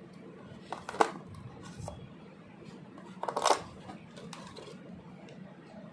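Small plastic toy pieces being handled: a sharp click about a second in, then a short clattering rattle of several clicks about three and a half seconds in.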